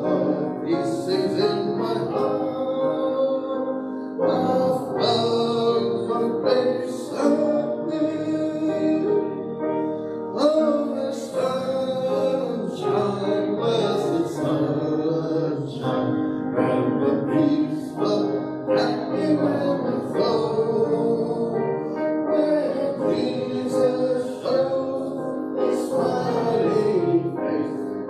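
Congregation singing a hymn a cappella, many voices together in parts, without instruments.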